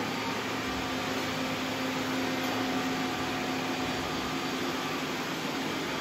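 Several robot vacuums running together on a tile floor, a steady whir of motors and brushes. A low hum in the mix stops about halfway through.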